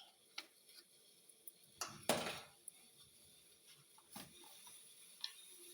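Scattered light clinks and knocks of kitchen utensils and containers, the loudest knock about two seconds in, over a faint steady hiss.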